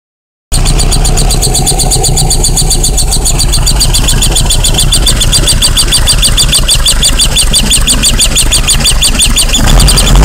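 Tuned VW 1303 RS flat-four engine running at a steady idle, with a fast, even, high-pitched ticking over the engine note. This is the strange noise that appeared after the intake manifolds were fitted, which the owner wonders may come from the MAF. Near the end the engine starts to rev up.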